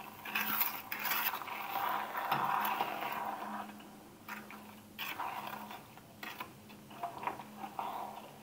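A metal spoon stirring sugared apricot halves in an enamel pot, scraping and knocking against the pot. The stirring is louder in the first few seconds, then quieter scattered scrapes follow.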